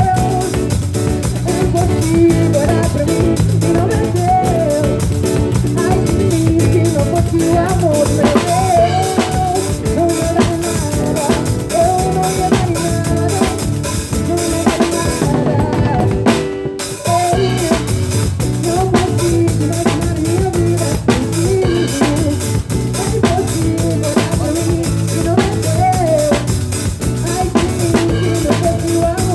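A pagode band plays a song with a drum kit driving the beat on bass drum, snare and rimshots under a wavering melody. About halfway through, the band drops out briefly before coming back in.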